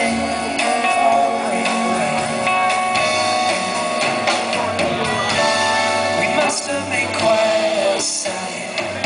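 Live smooth-jazz band playing, with saxophone, upright bass, keyboards and drums.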